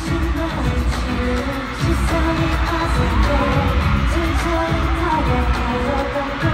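Live K-pop concert performance: a pop song with singing over a pulsing heavy bass beat.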